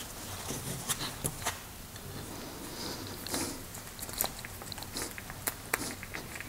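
Scattered small clicks and rubbing from gloved hands working fresh grease onto a brake caliper's slide pin and its rubber boot.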